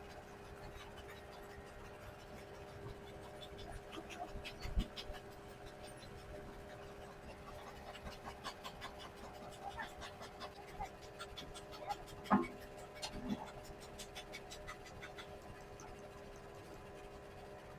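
Scattered small clicks, ticks and scraping from hand work on a motorcycle speedometer's small parts, over a steady hum, with a sharper knock about 5 seconds in and another about 12 seconds in.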